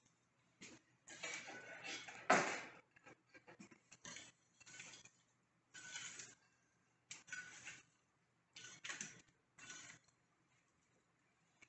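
Iron fire tool scraping and clinking against embers and a cast-iron Dutch oven's lid as hot coals are heaped on top to bake from above. Irregular short scrapes and clinks come about once a second, the loudest about two seconds in.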